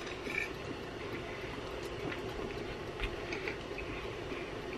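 A steady background hum, with a few faint light clicks of cutlery and dishes.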